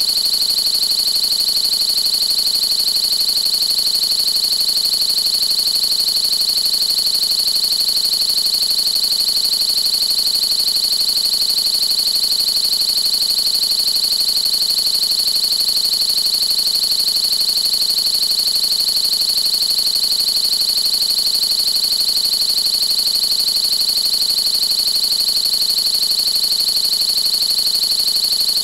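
Steady, loud, high-pitched synthesized electronic tone that holds one pitch without change, with a fainter, even higher tone above it.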